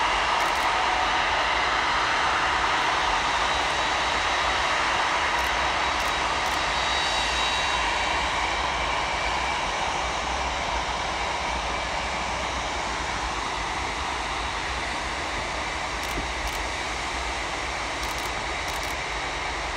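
Antonov An-225 Mriya's six D-18T turbofan engines at taxi power as the aircraft rolls slowly along the runway: a steady jet rumble with a high whine that slowly fades.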